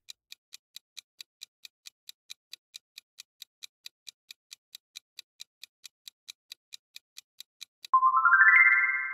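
Quiz countdown-timer sound effect: steady clock-like ticking, about four to five ticks a second. Near the end it gives way to a bright chime of quickly rising notes that rings out and fades, marking time's up.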